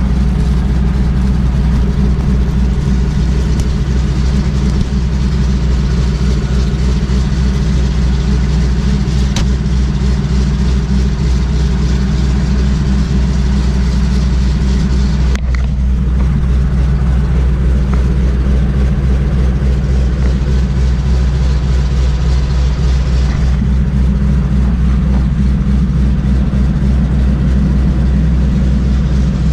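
Single-engine floatplane's piston engine and propeller running steadily as the plane taxis on water, heard from inside the cockpit.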